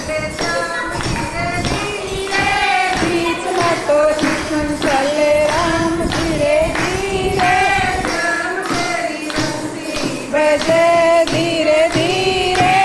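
Devotional bhajan sung in kirtan style, the melody held in long bending phrases, over a steady beat of hand percussion.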